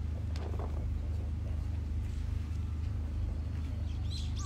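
Steady low mechanical hum, like an engine running, with a faint click about half a second in and a few high chirps near the end.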